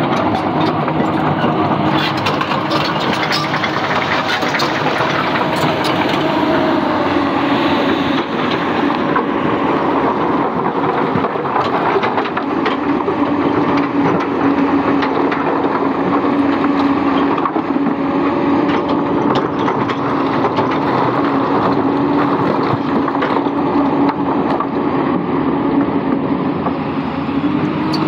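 Komatsu PC200 excavator's diesel engine working steadily under load with a constant hum, while its bucket scoops broken rock from shallow water, stones knocking and scraping against the steel.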